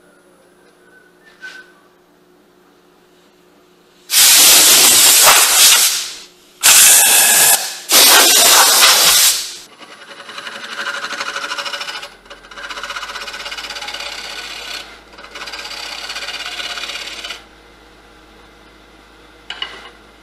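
Turning tool cutting inside a spinning wooden vessel on a wood lathe: three loud passes of cutting noise that start and stop abruptly, followed by three quieter, rhythmic scraping passes, over the lathe's steady hum.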